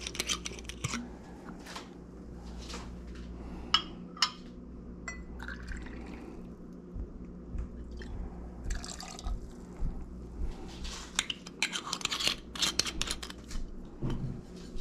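Dark rum poured from a bottle into a steel jigger and tipped into a glass, with short trickling and dripping and scattered clinks of glass and metal. A low steady hum sits underneath.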